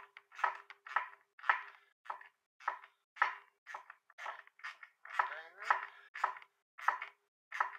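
Nuts and bolts on a bike rack being tightened with a 10 mm spanner: a run of short, irregular strokes of metal on metal, about two a second.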